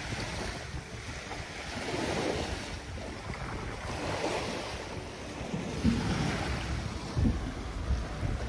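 Small waves washing in, swelling and falling every couple of seconds, with wind rumbling on the microphone.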